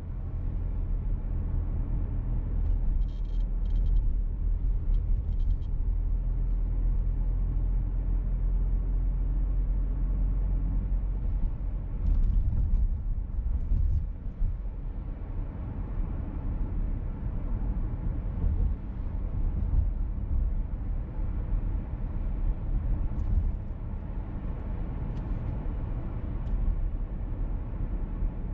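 Steady low rumble of engine and road noise inside a moving VW T-Roc petrol car, with a few short clusters of high ticks.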